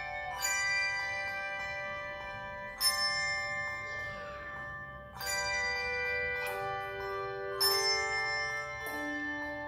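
Handbell choir ringing a hymn in sustained chords: a new chord is struck every two to two and a half seconds and left to ring on, with deeper bell notes joining in the second half.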